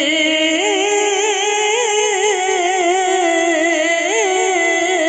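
Urdu naat singing: a voice draws out a long, ornamented line without words, the pitch wavering and turning on held notes.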